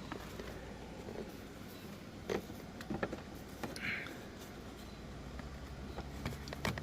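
Plastic steering-column cover being handled and fitted into place: a few faint clicks and light knocks, and a short rustle.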